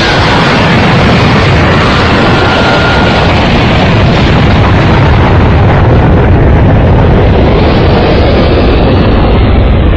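Dragon Ball Z anime explosion sound effect: a huge blast that hits suddenly and then goes on as a loud, continuous rumbling roar, with a short whistling tone a couple of seconds in.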